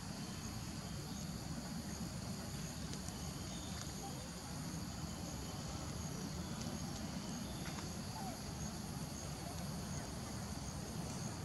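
Steady high-pitched insect chorus, with a fine rapid pulsing in its highest band, over a low steady rumble.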